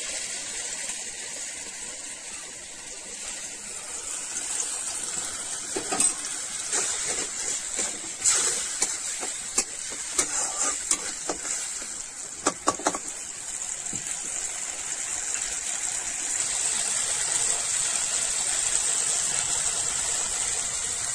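Mustard seed and red chilli paste sizzling in hot oil in an iron kadai, a steady hiss that grows louder in the second half. In the middle a metal spatula clicks and scrapes against the pan as the paste is stirred.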